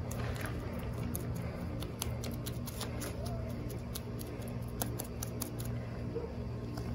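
Paintbrush stirring and tapping in a small plastic cup of fiberglass resin: a quick run of light clicks and scrapes, over a steady low hum.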